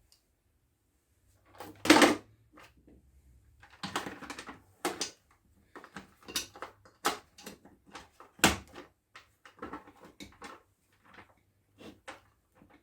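Irregular clicks, knocks and short scrapes of hands handling tools and chainsaw parts during a repair, with two louder knocks about two seconds in and past the middle.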